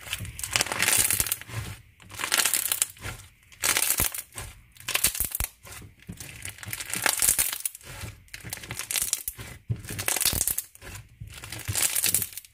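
Crunchy white slime packed with small pearl beads being squeezed, stretched and pressed by hand, giving crackling, popping crunches in repeated short bouts with brief pauses between.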